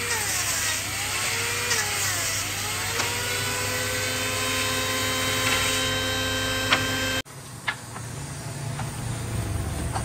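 Table-mounted circular saw cutting a plank. The motor's pitch sags and recovers as the wood is fed through, then the blade runs free with a steady whine and a sharp click near the end. About seven seconds in, the saw sound cuts off and gives way to quieter background noise.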